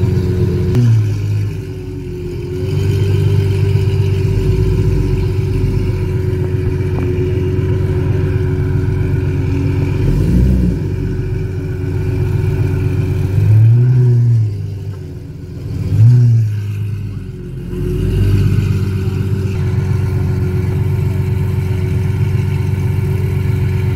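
Ferrari 812 Superfast's 6.5-litre naturally aspirated V12 idling through an iPE aftermarket exhaust, with a few short throttle blips, the loudest two close together a little past the middle.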